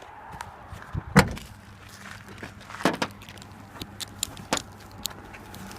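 Scattered sharp clicks and knocks, the loudest about a second in, over a steady low hum.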